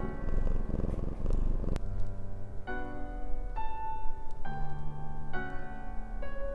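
A black-and-white cat purring close up, a rapid low rumble, with soft piano music underneath. About two seconds in, the purring stops and gentle piano music carries on alone, one note at a time.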